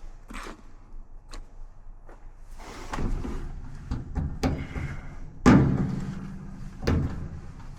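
Dryer parts being handled during the repair: a run of knocks and clatters, the loudest a bang about five and a half seconds in that rings on briefly, then another knock near the end.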